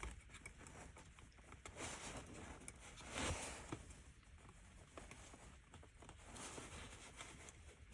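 Faint handling noises of a car's plastic light control switch panel being worked by hand: a few soft rustles and light clicks as a loose part is wiggled.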